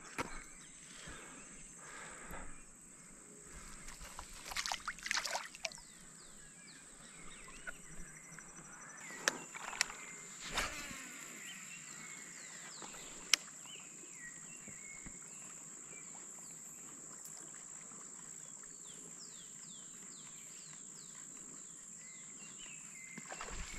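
Quiet outdoor ambience by a weedy pond: a steady high drone throughout, a few knocks and rustles in the first half, and a run of short falling bird chirps in the second half.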